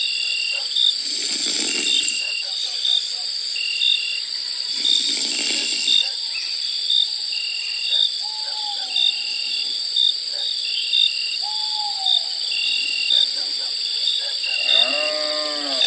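Steady high-pitched chirring, like insects at night, with regular short chirps about twice a second. Near the end comes a drawn-out animal call that bends up and down.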